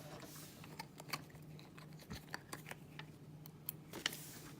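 Faint, irregular clicks and taps of small plastic toys and packaging being handled on a tabletop.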